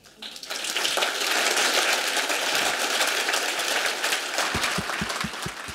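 Audience applauding at the end of a talk, a dense, even clapping. A run of low thumps, about five a second, comes in near the end.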